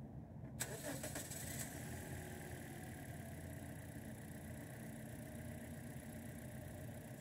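Toyota Corolla four-cylinder engine being cranked and catching about half a second in, then running on at idle with a persistent misfire from a faulty ignition coil.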